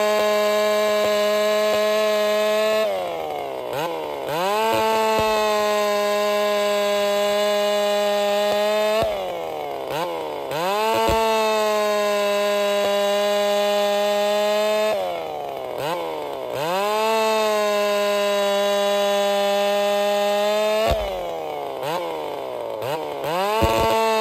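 Ported Partner 5000 two-stroke chainsaw cutting through a log at full throttle, holding a steady high-pitched engine note under load. About every six seconds the revs fall and climb back as it finishes a cut and goes into the next, four times in all.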